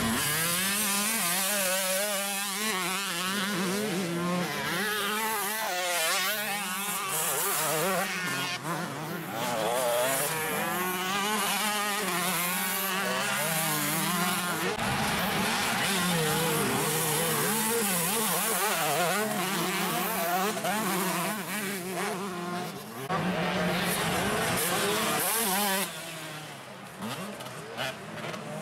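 Motocross bike engines revving, several pitches rising and falling over one another as the bikes accelerate and shift, quieter for the last few seconds.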